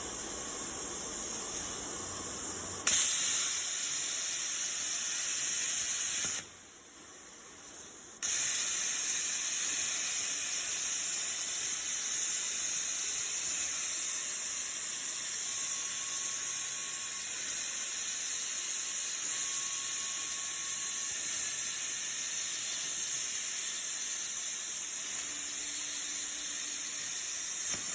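CNC plasma table's cutting torch in operation: a steady high hiss of the plasma arc that starts sharply about three seconds in, stops for under two seconds, then starts again and holds steady. A quieter hiss of air runs before the arc starts.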